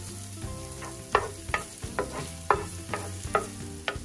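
Minced garlic and ginger frying in oil in a ceramic-coated pan, sizzling softly while a wooden spoon stirs, scraping and tapping the pan bottom in repeated short strokes.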